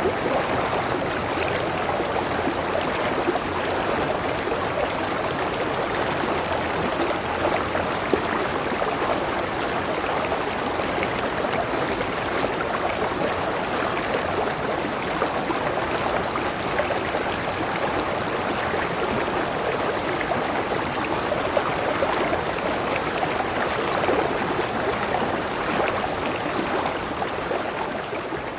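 River water flowing steadily, a constant rushing and babbling, which begins to fade out near the end.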